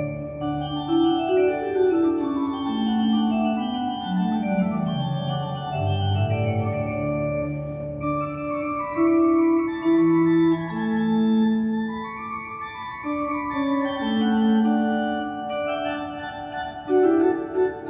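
Thomas Jann two-manual-and-pedal pipe organ (2008) being played: a moving melody over held chords, with deep bass notes at the start and again about six seconds in.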